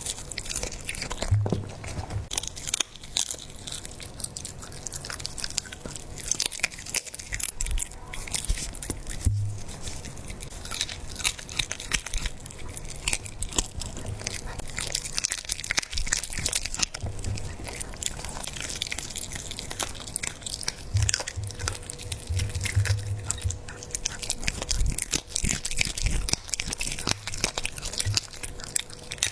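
A dog chewing a whole raw squab, its bones crunching in frequent sharp bites, with occasional short low thumps.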